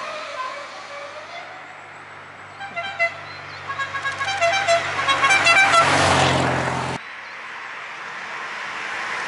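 A car horn tooting in a quick string of short beeps at a few different pitches, while a car's engine and tyres grow louder as it approaches. About seven seconds in the sound cuts off suddenly, and another car is heard approaching, getting steadily louder.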